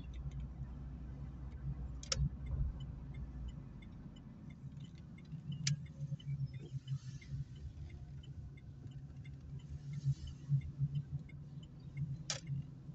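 Low engine and road rumble heard inside an Opel Meriva's cabin while driving slowly, the deepest part of the rumble easing off a few seconds in. Faint ticks run throughout, with two sharp clicks, one about two seconds in and one near the end.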